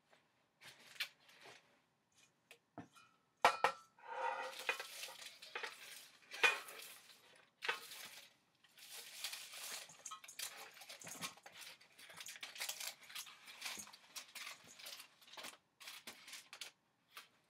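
Roasted Brussels sprouts being scraped with a spatula off a foil-lined baking sheet into a stainless steel mixing bowl: irregular scraping and clattering against the bowl, with several sharp knocks.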